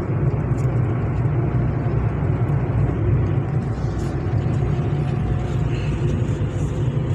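Maruti Suzuki Baleno driving at highway speed: a steady rumble of engine and tyre noise heard from inside the cabin.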